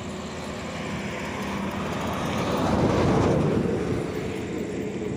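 A motor vehicle passing on the road, its rumble swelling to a peak about three seconds in and then fading.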